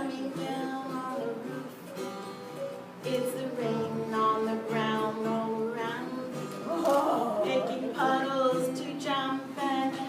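Live singing with guitar accompaniment: a voice carrying a sung melody over plucked guitar.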